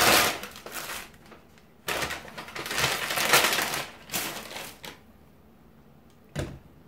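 Brown paper takeout bag rustling and crinkling as it is opened and the wrapped burgers are pulled out, in two spells: one at the start and a longer one about two seconds in.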